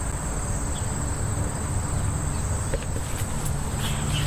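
Steady high-pitched trilling of an insect chorus, with a low rumble underneath.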